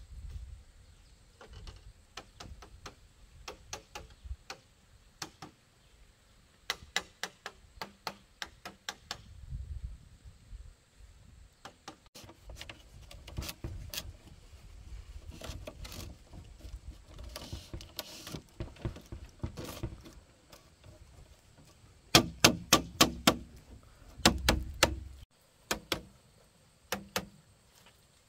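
Sharp knocks of a hand tool striking bamboo, coming in quick runs of several blows with pauses between; the loudest run, about six blows, comes near the end.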